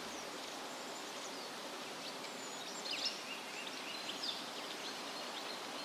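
Outdoor field ambience: a steady hiss with faint, brief bird chirps scattered through it, one a little louder about three seconds in.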